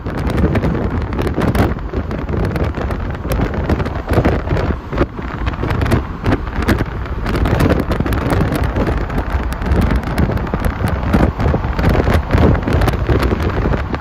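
Wind buffeting the microphone of a moving car in uneven gusts over a steady rush of road and engine noise.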